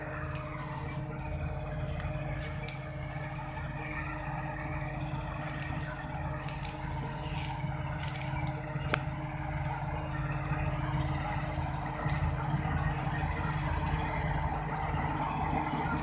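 KS 9300 Crop Master self-propelled combine harvester running steadily, its Ashok Leyland diesel engine humming under the noise of the machinery, with a couple of sharp clicks midway.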